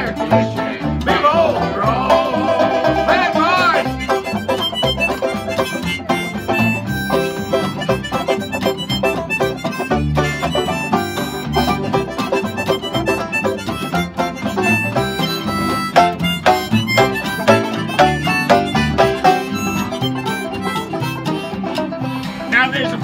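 An acoustic bluegrass band playing live: fast five-string banjo picking over upright bass. A voice sings for the first few seconds, and singing comes back right at the end.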